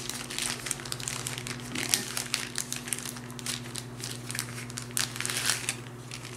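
Small plastic bag crinkling and rustling in irregular bursts as it is handled and pulled open.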